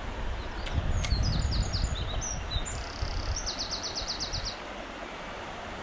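A shallow stony stream running steadily, with a songbird singing a phrase of separate high notes from about a second in that ends in a fast trill.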